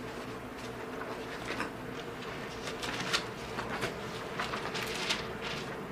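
Bible pages rustling as they are turned to look up a passage: a scattered run of short, soft paper swishes over a steady low room hum.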